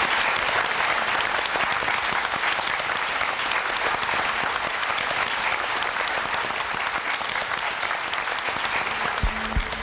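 Studio audience applauding steadily, the clapping easing a little towards the end. Music with a low beat comes in about nine seconds in.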